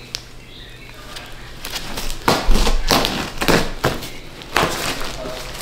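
Hands struggling to get into a heavily taped-up package. A string of short ripping, rustling and knocking noises starts about two seconds in.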